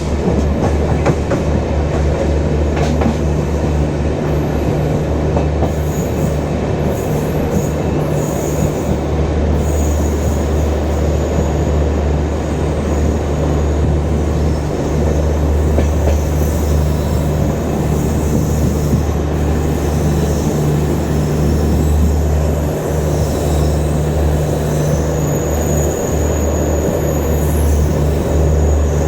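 Express train running at speed, heard from inside a coach: the steady low drone of the diesel EOG generator car just ahead sits over the rolling rumble of wheels on track. A faint high-pitched squeal comes in now and then.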